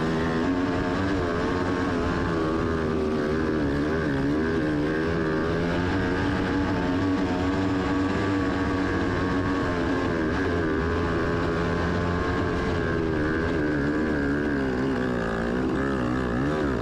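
Off-road vehicle engine pulling hard up a steep hill, its pitch rising and falling as the throttle and load change.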